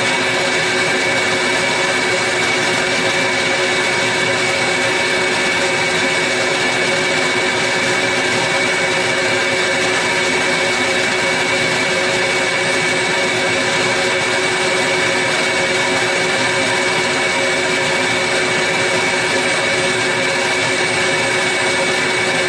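Table saw running with a steady whine as its blade rips a long oak board lengthwise.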